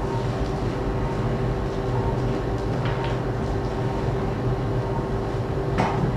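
Steady low hum and hiss of operating-room equipment during arthroscopic shoulder surgery, with a faint steady tone running through it. There is a brief sharp sound near the end.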